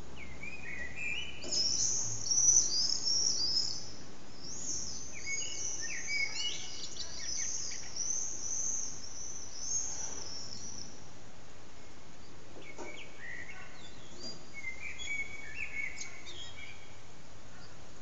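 Eurasian blackbird singing in phrases, with a stretch of high twittering from about one to eleven seconds in, over a steady low background noise.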